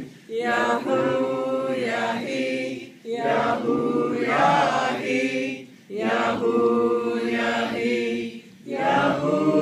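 A group of men and women chanting a zikr together, a short sung phrase repeated over and over, each about three seconds long with a brief breath between.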